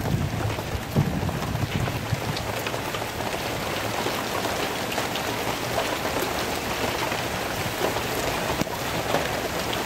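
Steady rain falling and pattering on surfaces during a thunderstorm, an even hiss.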